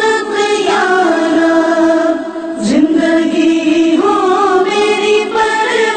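A sung Urdu prayer (dua): voices singing a slow melody in long, held notes, with a short dip about two seconds in and a note sliding upward just after.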